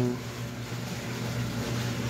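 Drain pump of a Samsung WW85J43MW front-load washing machine running at the start of the drain phase, a steady hum.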